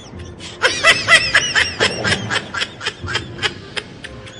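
A girl laughing: a run of quick, high-pitched giggles that starts about half a second in and tapers off toward the end.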